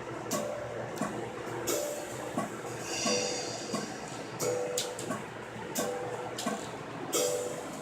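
Instrumental rap beat playing: a steady drum hit about every two-thirds of a second over short, repeating melodic notes, with no vocals.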